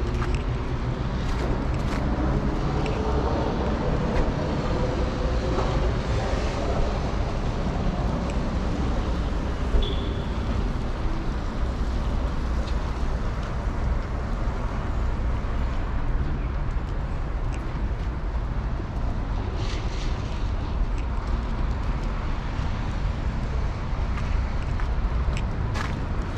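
Steady city street noise, mostly the low rumble of road traffic, with faint voices in the first several seconds.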